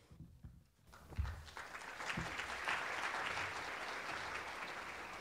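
Audience applauding: the clapping starts about a second in, builds to a peak and then slowly tapers off.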